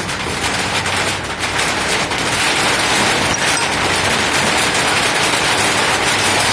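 Light rain (drizzle) falling steadily: a dense, even patter of many small drops making a continuous hiss.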